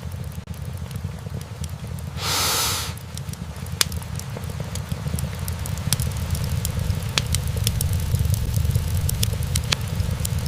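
Wood-burning fireplace: logs crackling with scattered sharp pops, more of them in the second half, over a steady low rumble. A brief rush of noise, the loudest sound, about two seconds in.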